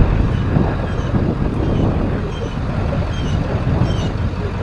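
A vehicle's engine running steadily, a continuous low rumble, with a few faint light high clinks or chirps over it.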